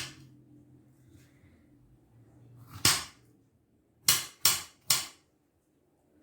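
Knife chopping through an apple onto a cutting board: one sharp knock about three seconds in, then three quick knocks a second later.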